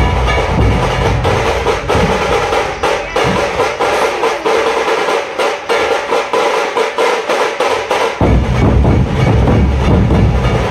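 Dhol drumming troupe playing large barrel dhols with sticks, a dense, fast rhythm. About two seconds in the deep bass strokes drop out, leaving only the higher drumming, and they crash back in together about eight seconds in.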